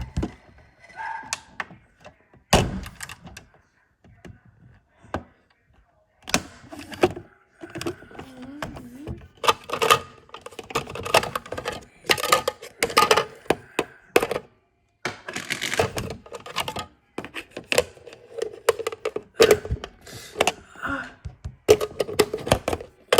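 Rapid, irregular clicking and knocking of hard objects being handled, with a few louder thunks.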